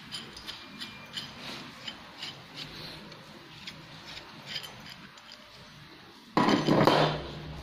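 Metal tubes and rods of a sewing-machine table stand being handled: light clicks and rubbing, then a louder scrape lasting under a second near the end.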